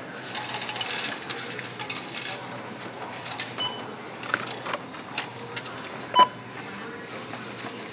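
Self-checkout scanner beeping as an item is scanned: a faint beep about three and a half seconds in and a loud short beep about six seconds in. Rustling of packaging and a few clicks come in the first couple of seconds.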